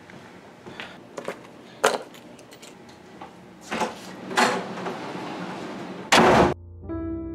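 A room door with a lever handle being opened and pulled shut: several clicks and knocks of the handle and latch, then a loud door slam about six seconds in.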